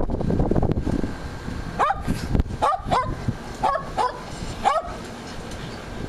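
Shetland sheepdog barking: about six short, sharp, high barks in quick succession, starting about two seconds in and stopping near five seconds. A low rumble on the microphone comes before the barks.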